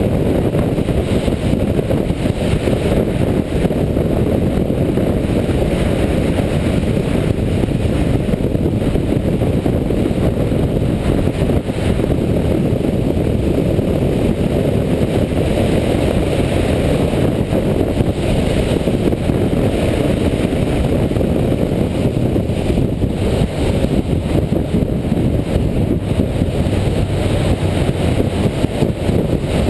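Suzuki GS500 parallel-twin motorcycle ridden at steady road speed, its engine running under a heavy, steady rush of wind on the onboard camera's microphone.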